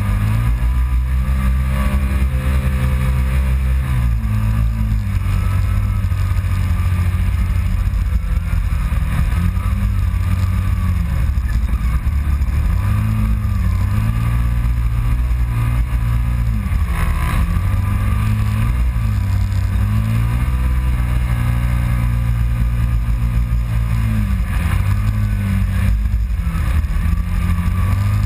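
Kawasaki Teryx side-by-side's V-twin engine running under load over sand dunes, its pitch rising and falling every few seconds as the throttle comes on and off, over a steady rush of wind noise.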